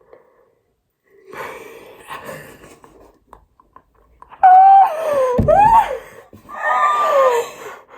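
Non-speech vocal sounds: a breathy wheeze, then two loud, high-pitched squeals that slide down and up in pitch, with a low bump partway through the first.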